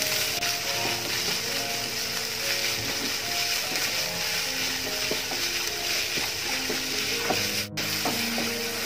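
Chopped onions sizzling in hot oil in a non-stick kadai while they are stirred and turned with a wooden spatula, with occasional scrapes of the spatula on the pan. This is the sauté stage, with the onions cooking down until soft. Light background music plays underneath.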